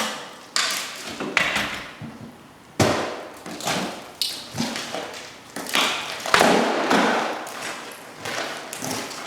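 Irregular heavy thumps and knocks, about a dozen, each dying away briefly in the room, from work on an interior wall that is being opened up.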